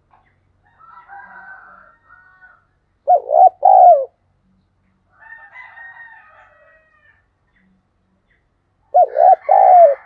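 Caged decoy spotted dove cooing: two loud phrases of about three short rising-falling coos, each about a second long, one about three seconds in and one near the end. Fainter, higher bird calls come in between.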